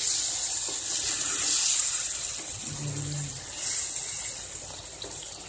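Stuffed ridge gourd and green chillies sizzling in a pan over a raised gas flame as the water they released boils off, with a spatula stirring them. The sizzle eases off somewhat toward the end.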